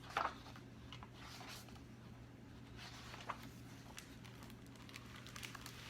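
Faint rustling and handling noises with a couple of soft taps, over a steady low hum.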